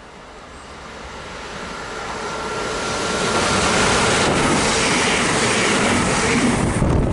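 ScotRail Class 385 electric multiple unit approaching and passing at speed: the rush of wheels and air builds steadily for about three seconds, then holds loud as the train runs by. A thin steady whine is heard during the approach.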